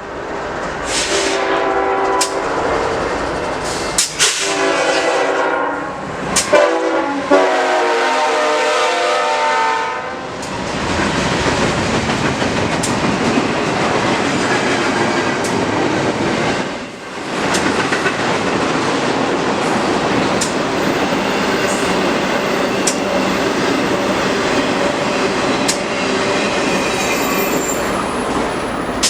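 Locomotive air horn sounding four blasts, long, long, short, long, the grade-crossing signal, then a train rolling past with steady wheel-on-rail noise.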